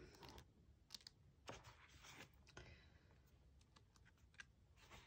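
Pages of a thick glossy photo book being flicked through by hand: faint, scattered paper flips and taps.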